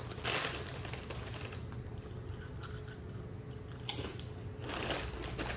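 Ruffles potato-chip bag crinkling as a hand reaches into it, in two short rustles, one near the start and one near the end, with faint clicks between, over a faint steady hum.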